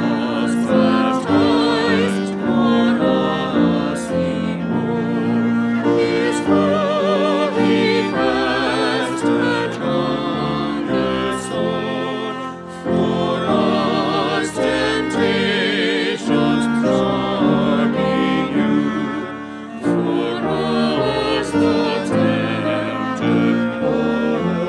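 Classical-style music: a melody sung with wide vibrato over held accompaniment chords.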